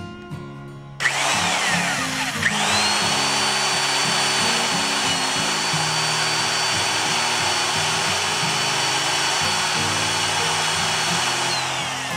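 Electric drill boring a hole with a freshly hand-sharpened twist drill bit. The motor starts about a second in, dips and spins back up, runs with a steady high whine, then winds down near the end.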